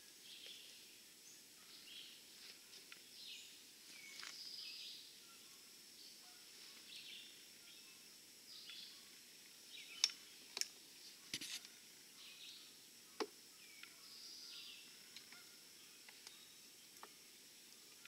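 Birds chirping and calling faintly, many short high notes scattered throughout over a thin steady high tone. A few sharp clicks come in a cluster near the middle.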